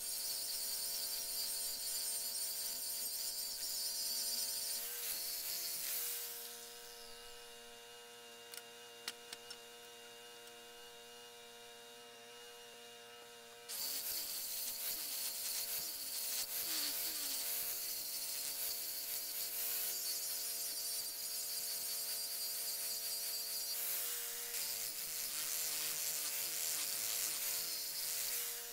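Electric power tool running and cutting metal in two long passes. The first cut lasts about six seconds. The motor then runs lighter for several seconds with a few clicks, and a second cut starts suddenly and goes on until near the end, the motor's pitch dipping under load.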